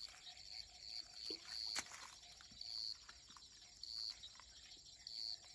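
Night-time animal calls: short high chirps repeating about once a second over a faint steady lower drone, with a few sharp clicks.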